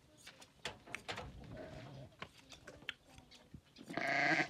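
A sheep bleats once, loud and quavering, near the end, over faint scattered clicks and rustling.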